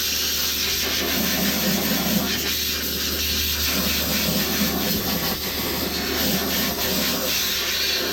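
Nitrogen from a high-pressure regulator blasting out of a hose and through a plugged condenser coil, a loud steady hiss of rushing gas.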